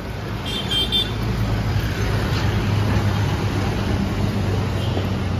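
A bus engine running as the bus drives past on a rough dirt road, with a steady low hum that swells and then eases off, and a brief high squeak about half a second in.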